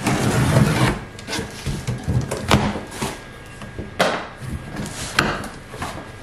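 A corrugated cardboard box being opened by hand: a blade scraping along the packing tape for about a second, then the flaps being pulled open and folded back, with rubbing and several sharp cardboard knocks.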